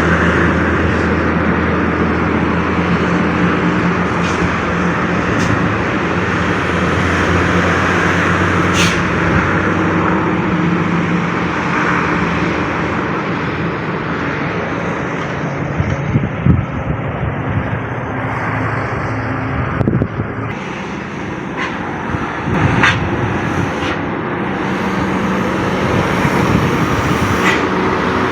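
Heavy American truck engine running, with a steady low drone that shifts in pitch after about ten seconds. A few short sharp knocks in the second half.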